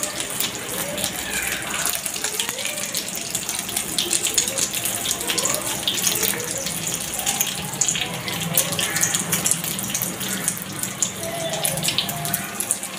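Egg kuzhi paniyaram batter balls sizzling in hot oil in a paniyaram pan, a steady frying hiss thick with small crackles.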